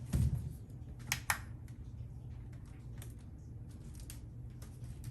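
Small knocks and clicks of potatoes being handled: a soft thump, then two sharp clicks about a second in, and scattered light taps over a low steady hum.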